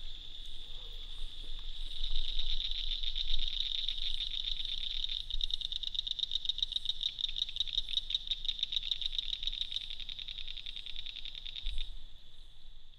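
Night chorus of calling animals: a steady, high, fast-pulsing trill. It grows louder about two seconds in and fades out near the end.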